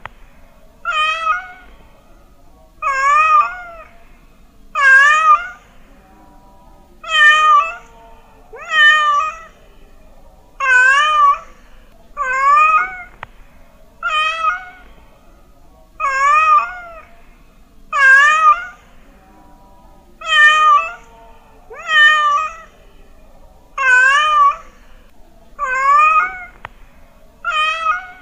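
Domestic cat meowing repeatedly, about one meow every two seconds, each call wavering up and down in pitch.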